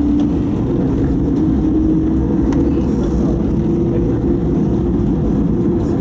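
Tram running on its track, heard from inside the cab: a steady low rumble of wheels on rails with a motor hum that edges slowly up in pitch as it gathers speed.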